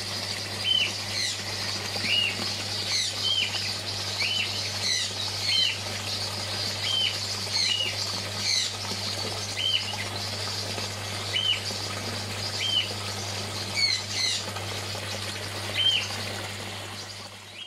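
Birds chirping: short, repeated chirps about once a second with quick falling higher notes, over a steady low hum. The sound fades out at the very end.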